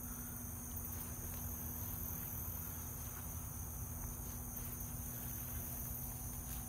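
Steady insect chorus: an even, high-pitched buzz that does not break, over a low rumble and a faint steady hum.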